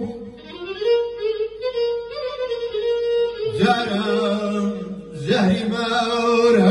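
A man singing a Kurdish song through a microphone in long, held notes. He slides up into the first note and comes in stronger twice, about three and a half and five seconds in.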